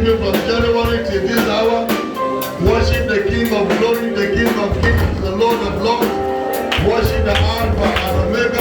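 Live church worship music with a steady beat, played on instruments and drums.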